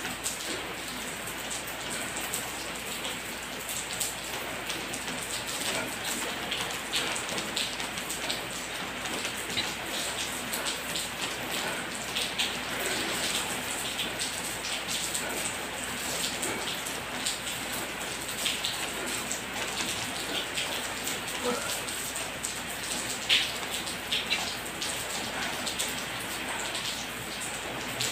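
Steady rain falling, an even hiss with a constant patter of drops and an occasional louder drop.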